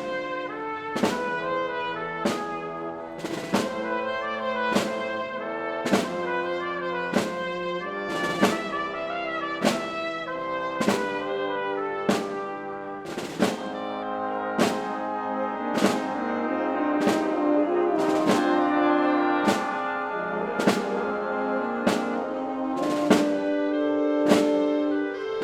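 Symphony orchestra playing a slow processional march: brass chords held over an even percussion stroke about every second and a quarter.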